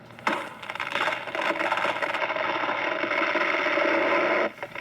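Chainsaw cutting into a log at a logging competition. The saw runs in a fast, even buzz from just after the start and stops abruptly near the end.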